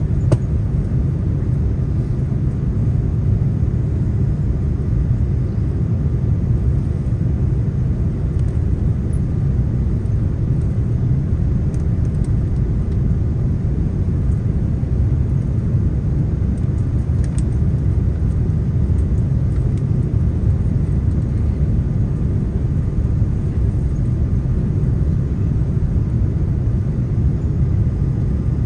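Steady low rumble of engine and airflow noise inside the cabin of an Airbus A330-300 airliner descending on approach to land.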